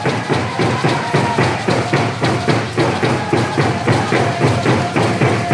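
Stick game song: many hand drums beaten together in a fast, even beat, with voices singing over them.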